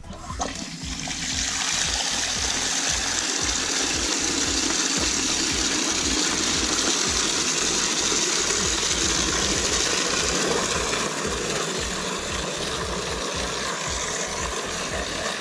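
Water running from an outdoor wall tap into a plastic bucket: it starts within the first second as the tap opens, then pours steadily.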